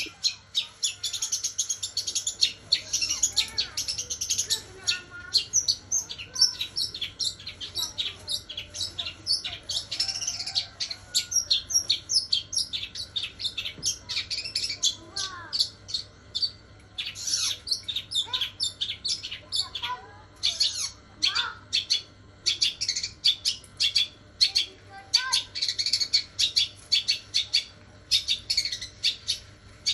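Long-tailed shrike (cendet) singing a continuous fast run of short, high chirps, its song filled with mimicked house sparrow chirping, with a few lower sliding whistles mixed in.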